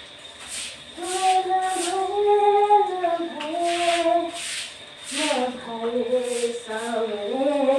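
A woman singing a slow tune without clear words, in long held notes that step up and down, with soft rubbing strokes of cleaning between the phrases.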